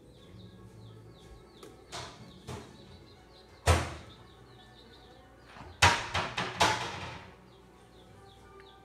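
Baby chicks peeping faintly and repeatedly, with a loud thud about four seconds in and a quick run of about five knocks around six seconds in.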